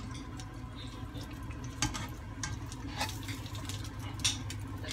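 Oil frying lightly in a nonstick pan as onion rings are lifted out, with three sharp clicks of metal tongs and a spatula against the pan over a steady low hum.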